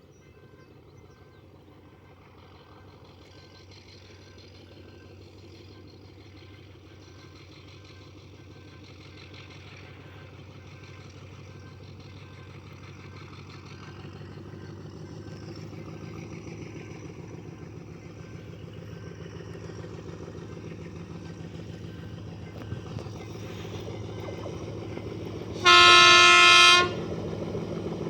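TCDD DE24000-class diesel-electric locomotive DE 24205 running light, without cars; its engine rumble grows steadily louder. Near the end it gives one loud horn blast about a second long.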